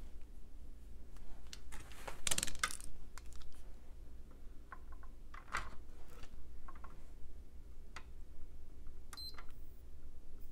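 Scattered light clicks and taps of handling on a workbench, with a brief rustle about two seconds in, over a steady low hum. Near the end a short high beep, a PS4 mainboard beeping as it powers on.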